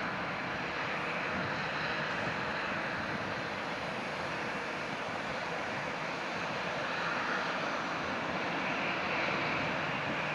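Airbus A321 jet airliner's two engines at takeoff thrust during the takeoff roll, a steady rushing jet noise heard from behind as the aircraft accelerates away down the runway.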